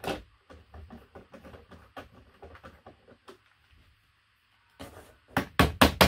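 Hand work on the mounting of an overhead RV cabinet door's gas strut: a run of small, faint clicks as the fastener is worked in, a short pause, then near the end a quick series of sharp knocks, about four a second.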